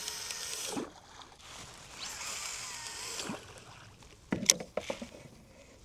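Two swishing kayak paddle strokes through the water, one at the start and one about two seconds later, followed a second after that by a quick cluster of sharp knocks, the loudest midway through.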